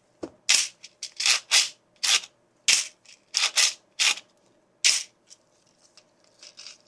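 Quick rasping hand strokes on a 3D-printed plastic claw, cleaning up its rough edges: about ten short strokes over five seconds, then a few fainter ones near the end.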